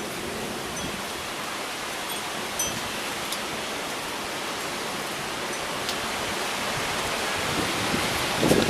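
Heavy rain pouring down, a steady hiss that slowly grows louder, with scattered sharp ticks of drops striking the camera. A brief louder burst comes near the end.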